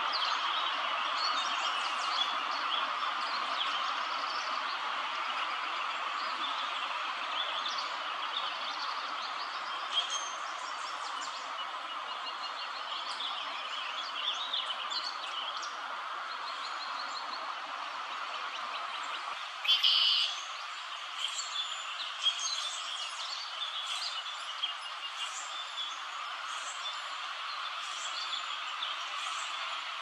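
Small songbirds chirping and singing in short, scattered phrases over a steady background hiss, with a brief louder sound about twenty seconds in.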